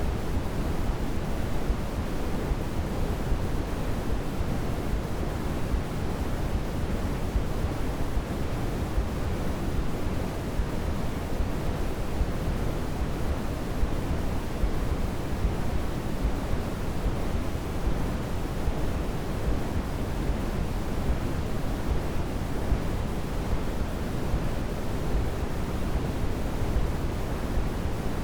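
Steady, unchanging pink-type noise, deepest in the low end and softer in the highs, played as a baby sleep aid.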